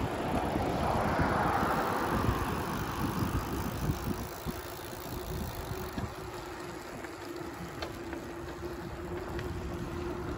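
Wind buffeting the microphone with a rough low rumble, from moving along beside a child's bicycle on a paved path. A brighter hiss fades after the first few seconds, and a faint steady hum comes in about four seconds in.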